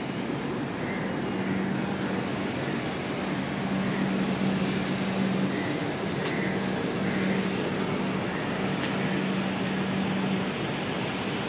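Steady running noise of a train, with a low hum that breaks off briefly about six seconds in and fades out near the end.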